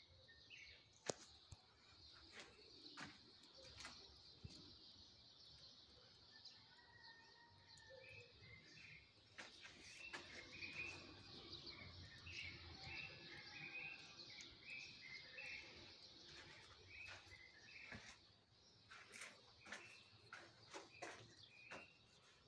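Near silence: faint background with a steady high hiss, faint chirps and a few soft clicks.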